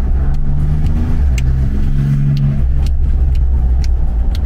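Car driving, a steady low rumble of engine and road, with an engine hum that comes up in the first half and fades about three seconds in, and a few light clicks.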